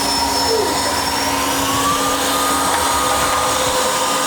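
Narwal S10 Pro wet-dry vacuum mop running: a steady motor whine over a strong, even rush of suction air. Its pitch rises a little between one and two seconds in.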